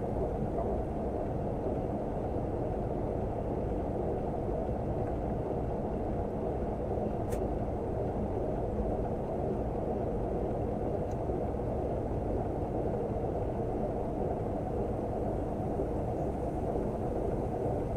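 Steady, deep rush of airflow and engine noise inside a Boeing 737NG cockpit on approach, holding even throughout.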